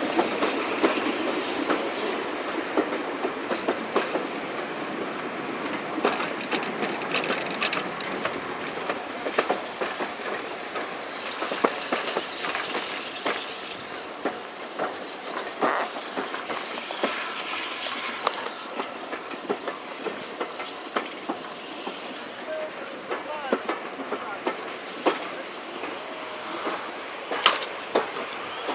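Railway carriage wheels clattering and clicking over the rail joints as a train runs slowly into a station, heard through an open carriage window, with many sharp irregular clicks over a steady rumble.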